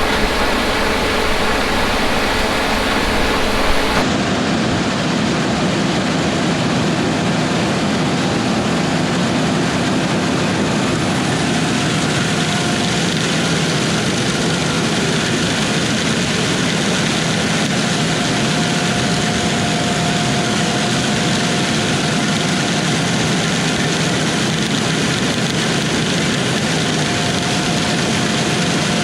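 Heavy diesel harvest machinery running steadily. The sound changes abruptly about four seconds in, and a faint steady whine comes in partway through.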